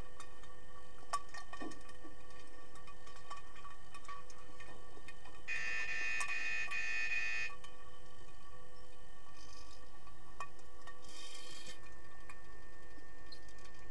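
Underwater pool sound: a steady hum of tones with scattered faint clicks, and about five and a half seconds in an electronic buzzer sounds for about two seconds, typical of an underwater hockey referee's sounder stopping play. A short hiss follows about eleven seconds in.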